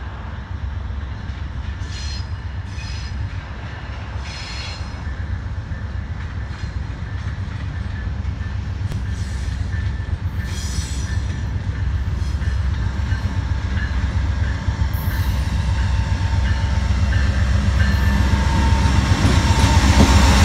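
Amtrak GE P42DC diesel locomotive leading a passenger train as it approaches and passes, its engine rumble growing steadily louder. Brief high-pitched squeals come several times from the train.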